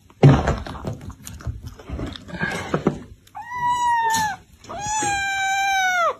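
A cat meowing twice in long, drawn-out meows, the second longer than the first. They follow a thump and some scuffling noise near the start.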